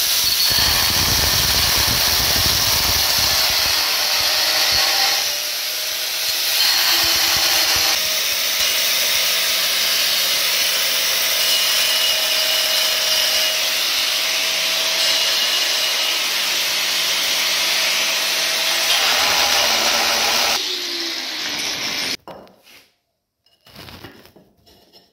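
Angle grinder with a hole-cutting bit grinding through ceramic wall tile, running steadily with a brief dip about five seconds in. It eases off near twenty seconds and cuts off abruptly a couple of seconds later, followed by a few faint taps.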